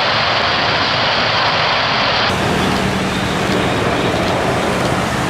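Jet airliner engine noise: a loud, steady rush of sound. About two seconds in it changes abruptly, and a low steady hum joins it.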